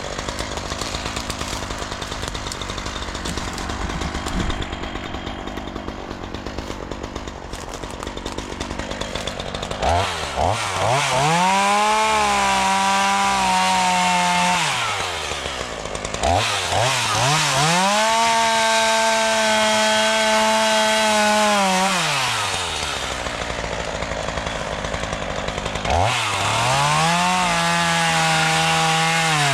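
Chainsaw idling, then revved up to full throttle three times, a few seconds each, and let back down between, while cutting trees and brush.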